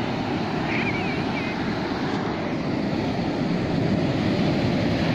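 Ocean surf washing and breaking on a beach, a steady rushing noise, with wind buffeting the phone's microphone.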